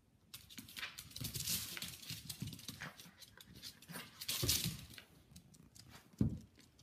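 Small dog playing rough with a person on a hardwood floor: claws and paws scrabbling and tapping on the wood in quick irregular bursts, with a louder scuffle about two-thirds of the way through and a sharp thump near the end.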